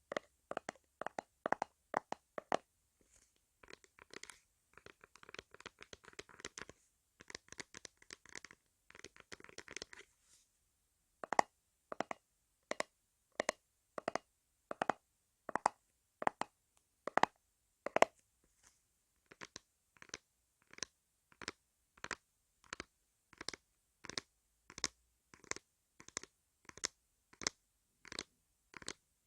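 Hands rubbing and massaging a microphone's ear in short scratchy strokes. They come quickly at first, then rub densely for several seconds, then settle into even strokes about one and a half a second.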